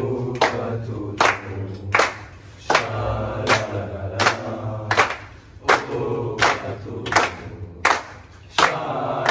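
A team of men clapping in unison, about one clap every three-quarters of a second, while chanting together in time with the claps. This is a post-match victory chant.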